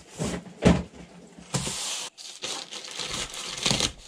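Plastic mailing bag of a parcel being handled and torn open: a couple of knocks early on, then a short rasp and a run of crinkling, crackling plastic.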